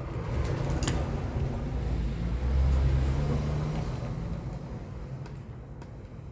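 Low rumble that builds to its loudest about two to three seconds in and then slowly fades, with a couple of light clicks about a second in.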